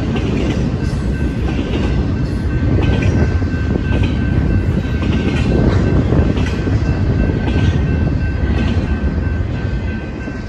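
Double-stack intermodal freight cars rolling past at speed, a heavy rumble with wheel clacks about once a second, while the grade-crossing bell rings steadily. Near the end the last car clears and the rumble begins to fade, leaving the bell.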